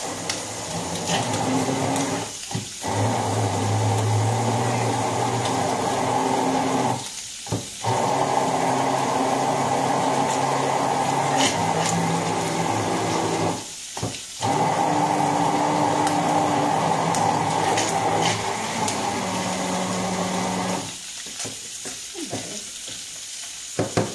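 Immersion blender running in four long bursts with brief pauses between them, its motor pitch shifting from one run to the next as it purées tomatoes with ice. It stops about 21 seconds in, leaving the quieter sizzle of octopus frying in a pan.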